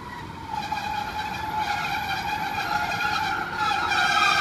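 Class 150 Sprinter diesel unit braking as it arrives at a platform. Its brakes give a high squeal that sinks slightly in pitch and grows louder, with more shrill tones joining near the end as the train draws close.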